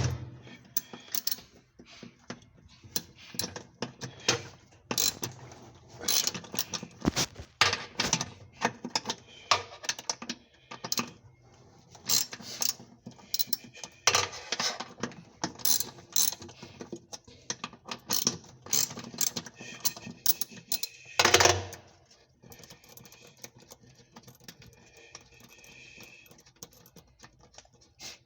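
Irregular metallic clicks, clanks and knocks of hand tools and parts as a top-loading washing machine is taken apart, with one louder knock about 21 seconds in. The sound then drops to quieter handling near the end.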